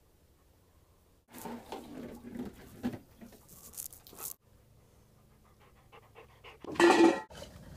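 Labrador retriever panting in irregular bursts, then a short, loud pitched whine from a dog's yawn near the end.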